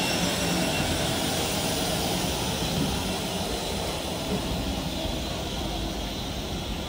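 Stanier Mogul 2-6-0 steam locomotive moving slowly past at close range: a steady hiss of steam over the rumble of the engine, growing gradually fainter.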